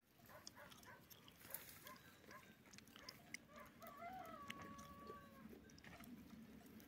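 A rooster crowing faintly: a few short notes and then one long held note, about four seconds in. Scattered small clicks and rustles run underneath.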